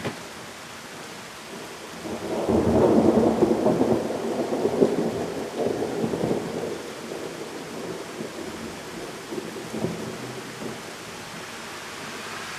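Thunder rolling over steady pouring rain: the rumble builds about two seconds in, is loudest for the next few seconds with a crackling edge, then slowly dies away.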